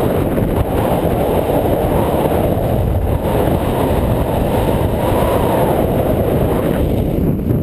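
Strong wind buffeting a GoPro's microphone: a loud, steady, low rumble with no breaks.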